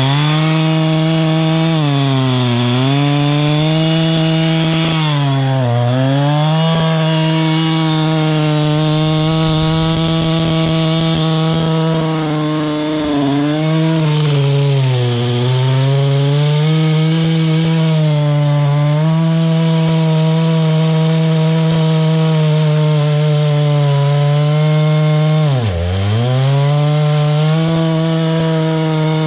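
Large Husqvarna two-stroke chainsaw running at full throttle while ripping a big log lengthwise. Its pitch sags briefly several times as the chain bites, with a deep drop near the end before it picks back up to full revs.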